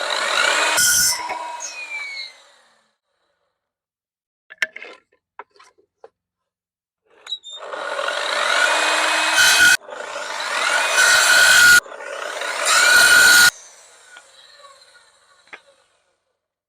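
Electric chop saw cutting pallet-wood offcuts to length: one cut at the start, a few light knocks of wood being set against the stop, then three cuts in quick succession. Each cut carries a rising motor whine and stops abruptly.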